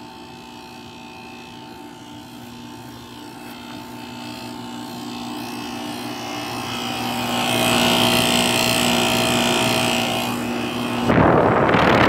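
Two 1994 Rheem 2.5-ton central air conditioner condensers running: a steady compressor and fan hum that grows louder as the microphone comes closer. Near the end the condenser fan's discharge air blows straight onto the microphone with a sudden loud rush.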